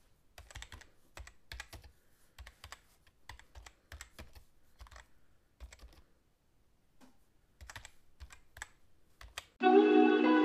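Computer keyboard typing in irregular runs of key clicks with short pauses. Music starts about a second before the end.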